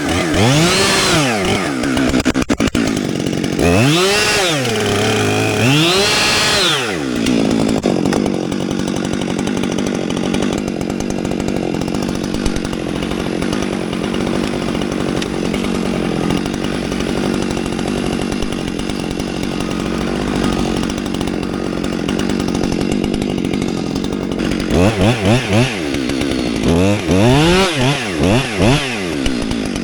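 Two-stroke chainsaw revving up and down several times, then held at a steady high run for about seventeen seconds as it cuts through the log, then blipped up and down quickly again near the end.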